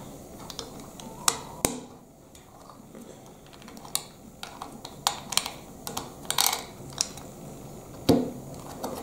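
Plastic Lego bricks clicking and snapping as they are pressed and fitted onto a small model: a dozen or so sharp, irregular clicks, the loudest one near the end.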